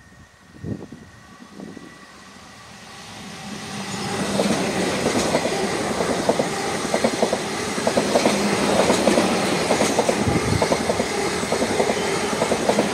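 South Western Railway Class 444 Desiro electric multiple unit running through on the line. It grows louder over about two seconds, then holds a loud, steady rumble with rapid, irregular clattering of its wheels over the rail joints.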